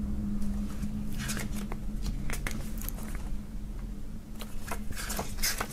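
Paper rustling and soft taps from the pages of a printed CD booklet being handled and turned, over a steady low hum.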